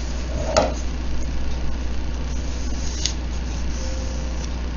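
Steady low hum in the room, with two brief clicks and faint rubbing as a duct-tape-wrapped foam backer rod is rolled flat on a wooden tabletop.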